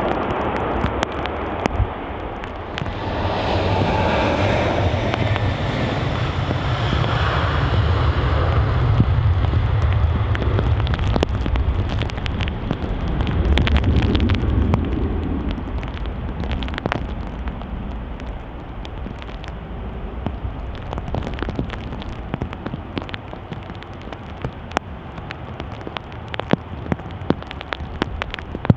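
Airbus A330 twin-jet airliner on its takeoff roll on a soaked runway: the jet engines' noise swells a few seconds in, with a high whine sliding down as the aircraft passes and a deep rumble strongest around the middle. The rumble then fades to a lower steady noise, with raindrops ticking.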